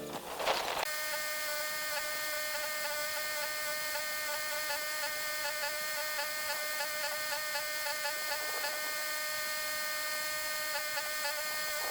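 A small electric motor running at a steady high speed, a high buzzing whine that starts about a second in and holds without change.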